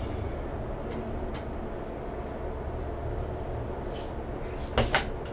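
Bosch front-loading washing machine in the wash phase of a 90 °C cotton programme, its drum turning and tumbling wet, sudsy laundry with a steady low churning. A couple of sharp clicks come near the end.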